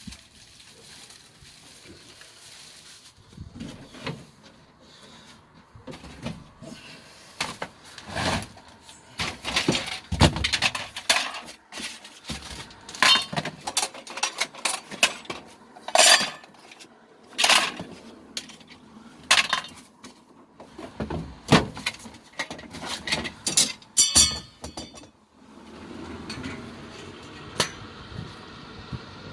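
Irregular clanks and clinks of metal objects being handled and dropped, with a quick run of ringing clinks a little before the end, then a steady low noise.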